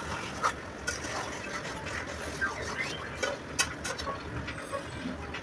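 Steel spatula stirring fish curry in a steel kadai, with scattered light clinks and scrapes of metal on metal over the thick gravy.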